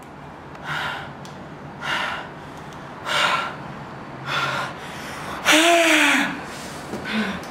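A man breathing heavily and audibly, four breaths about a second apart, then a louder voiced gasp about five and a half seconds in and a short voiced catch near the end.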